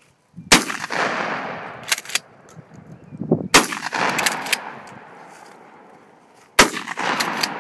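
Rock Island Armory M5 pump-action shotgun fired three times, about three seconds apart, each blast echoing away over a second or two. Between shots the slide is racked in a quick pair of clacks.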